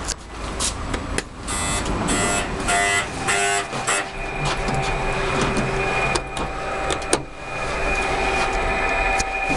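Mitsubishi NexCube elevator: its door-open buzzer sounds in four short pulsed beeps, then the elevator's machinery runs with a steady electric whine and hum, broken by a couple of sharp clicks.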